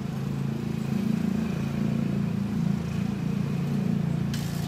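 An engine running steadily with a low hum that swells and then eases off near the end, with a brief rustling burst about four seconds in.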